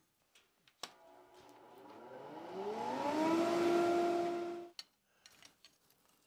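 A small electric motor spinning up with a rising whine and a growing rush of air, levelling off at a steady pitch, then stopping abruptly. A few light clicks come before and after it.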